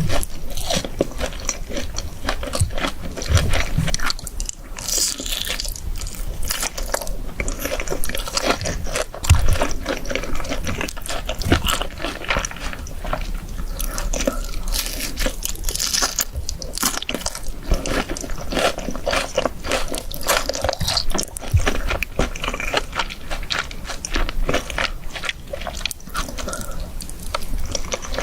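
Close-miked eating sounds: crunchy bites and chewing of fried chicken, a dense run of quick crackles and crunches throughout.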